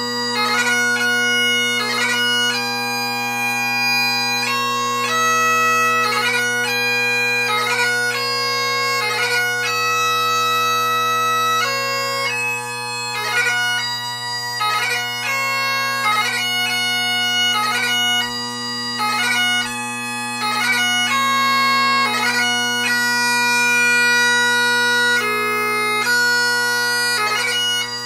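Great Highland bagpipe playing slow piobaireachd: steady drones under a chanter melody of long held notes, broken by quick gracenote flourishes between them.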